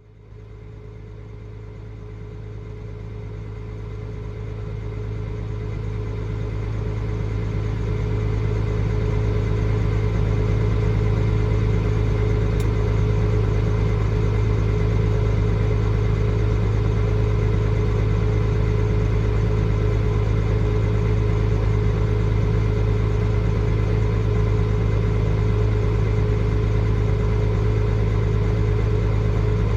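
Vehicle engine running steadily with a constant low hum. It cuts in at the start and grows louder over the first several seconds, then holds steady.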